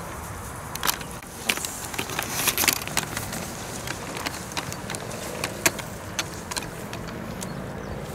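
Steady low outdoor rumble with scattered sharp clicks and ticks.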